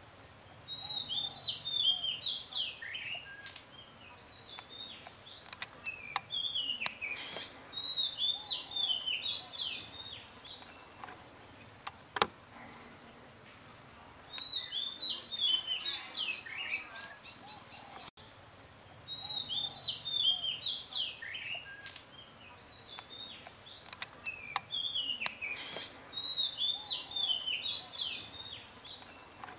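A songbird singing bouts of quick, fluttering chirped notes that come again every few seconds, with a sharp click about twelve seconds in.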